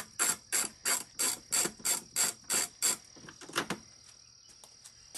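Hand ratchet clicking in short bursts, about three a second, as it turns out a fairing bolt with a size 4 Allen bit on an extension. It stops about three seconds in, leaving only a few light ticks.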